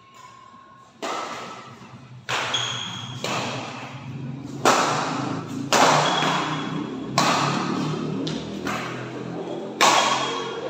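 Badminton rackets striking a shuttlecock during a doubles rally: about eight sharp knocks roughly a second apart, each ringing out in the hall's echo.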